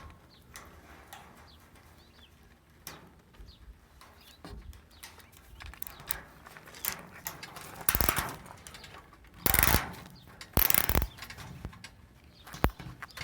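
Hands working quarter-inch wire mesh fencing on a gate: scattered light clicks and rustles, then three louder rasping bursts of about half a second each and a sharp click near the end.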